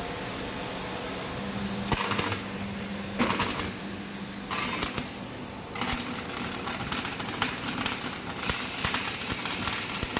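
Butt welding and flash trimming machine running: a steady machine hum broken by several short bursts of mechanical clatter, which come closer together in the second half.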